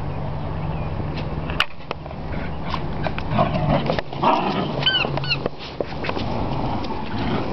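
Cockalier puppies playing, with a few short high-pitched yips about five seconds in and scattered clicks. A steady low hum runs underneath.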